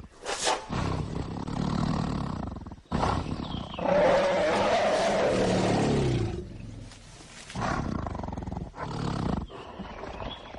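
Tigers snarling and roaring in several rough bursts with sudden breaks between them, the loudest about four to six seconds in.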